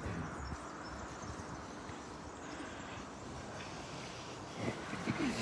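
Steady outdoor background noise of a crowd standing quietly, with a brief sliding pitched sound near the end.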